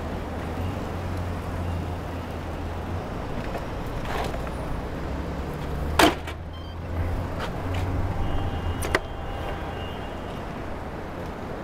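City street traffic with a steady low engine hum from nearby vehicles, broken by a loud sharp click about six seconds in and a smaller one about three seconds later.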